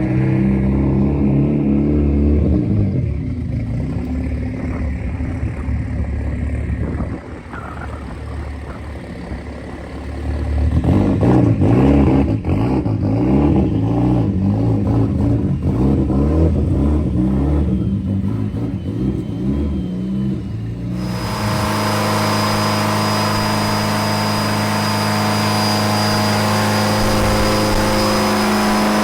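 Nissan Silvia S14's engine running and being revved up and down, freshly started for the first time after the rebuild. About two-thirds through, the sound cuts abruptly to a steady, even running sound with a held high whine.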